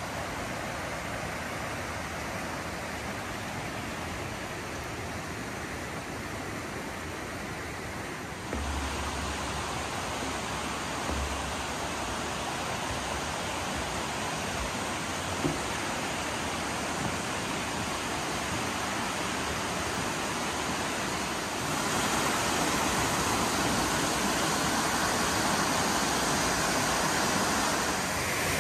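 Steady rush of flowing water from a mountain stream or waterfall. It jumps louder about 8 seconds in and again about 22 seconds in, with a single faint knock around 15 seconds.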